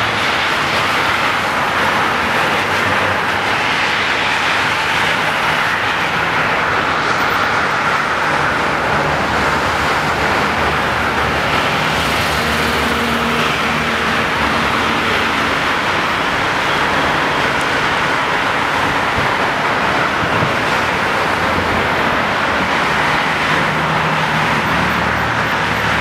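Dense multi-lane highway traffic running steadily: an even, continuous wash of tyre and engine noise, with low engine hum swelling now and then in the middle and near the end.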